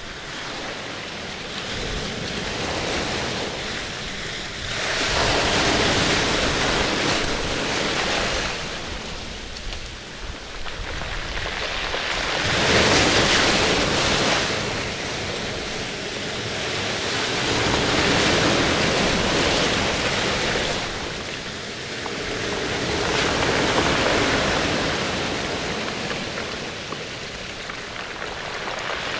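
Rushing, surf-like water noise that swells and fades roughly every five seconds.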